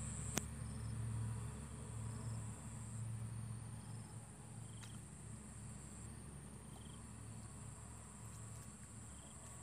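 Insects chirring steadily at a high pitch, over a faint low hum, with one sharp click about half a second in.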